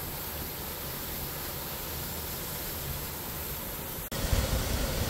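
Steady rushing hiss of water running under the ice of a mostly frozen waterfall. About four seconds in, a sudden cut brings a louder, closer take with an uneven low rumble.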